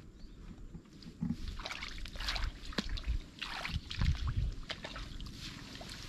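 Canal water sloshing and splashing in irregular bursts, with a few low thumps about four seconds in.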